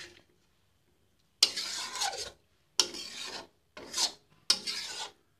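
A steel spatula scraping across a metal kadai as it stirs thick egg, potato and cauliflower curry. Four separate scraping strokes, each under a second long, begin after about a second and a half of quiet.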